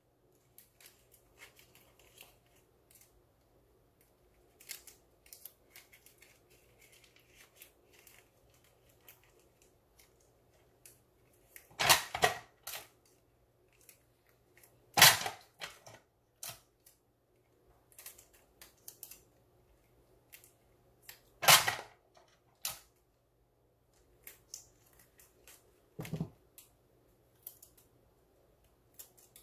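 Tape and paper being handled on a homemade balloon pop-it: scattered soft crinkles and clicks, with four louder sharp snaps about 12, 15, 21 and 26 seconds in.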